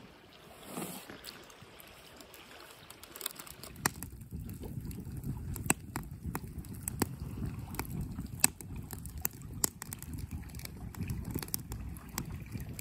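Wood campfire crackling, with irregular sharp pops and snaps starting about three seconds in, over a low steady rush of wind and lapping lake water.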